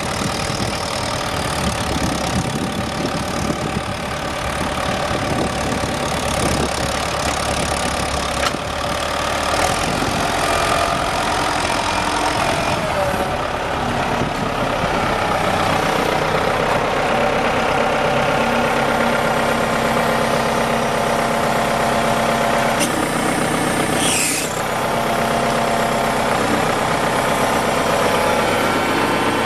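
A 1998 John Deere 6410L tractor's four-cylinder diesel engine runs steadily. Its engine speed picks up partway through and holds higher. A sharp click comes about eight seconds in, and a short, higher-pitched sound comes near the end.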